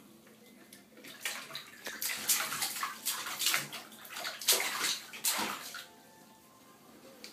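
A baby's hands splashing and slapping the bathwater, a quick run of uneven splashes that stops about six seconds in.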